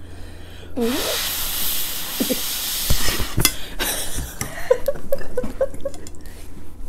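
Close-miked table sounds of people eating spaghetti: a long breathy hiss, then forks clicking against plates and a few low bumps about three seconds in. Toward the end comes a quick run of short giggles.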